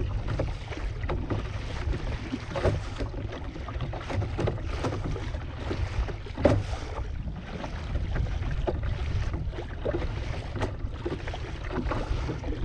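Wind buffeting the microphone with a steady low rumble, while rough water splashes and slaps against a kayak in irregular knocks and splashes. The sharpest and loudest of these comes about six and a half seconds in.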